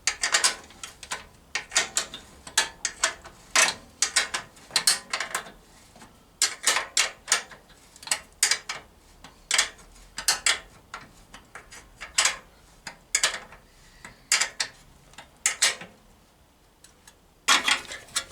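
Hand ratchet clicking in short runs, with pauses between, as bolts are tightened on the radiator brackets. A louder rustle of handling comes near the end.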